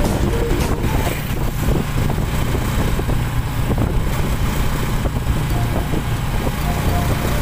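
Motorcycle running steadily at riding speed, heard from the back seat, its engine mixed with road and wind noise on the microphone.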